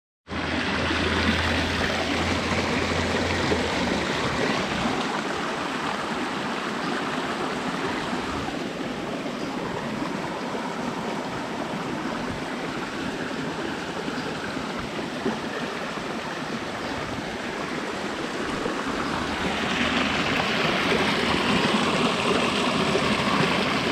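Floodwater rushing down a small wet-weather stream swollen by heavy rain, a steady rush that grows a little louder near the end, with a faint low hum at the start and again near the end.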